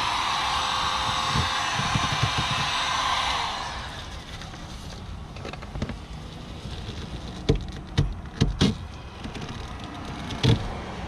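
Small Harbor Freight heat gun blowing steadily on its low setting, switched off about three and a half seconds in. Then a handful of sharp clicks and knocks as the glued e-brake handle grip is twisted and worked loose.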